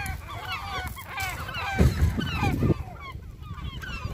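A flock of gulls calling over one another, many short cries bending up and down in pitch. Gusts of wind buffet the microphone, strongest about two seconds in.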